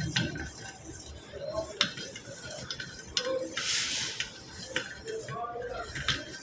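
Metal tools and brake parts clinking and clicking against each other at irregular intervals, with a brief hiss about halfway through.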